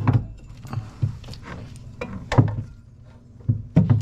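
Heavy knocks and clunks from an A/C compressor being shifted against its mounting bracket while it is lined up for its bolts: one at the start, one a little past two seconds, and two close together near the end, over a low steady hum.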